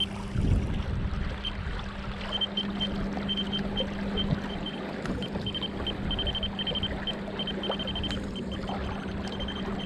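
Small electric trolling motor running steadily with a low hum, pushing the float boat along, over water slosh and rough low noise against the hull and microphone. Short high beeps come and go throughout.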